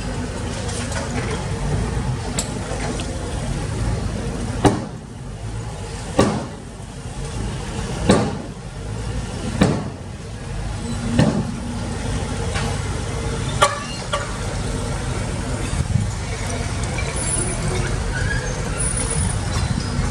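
Heavy diesel excavator engine running steadily, with a series of about six sharp metallic knocks and thuds roughly a second and a half apart through the middle of the stretch as the machine works.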